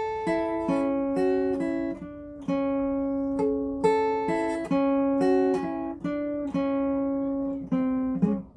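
Acoustic guitar being played, plucked notes and chords ringing one after another, a new one about every half second.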